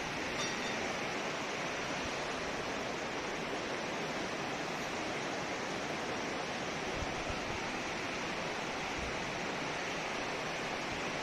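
River water rushing, a steady, even noise.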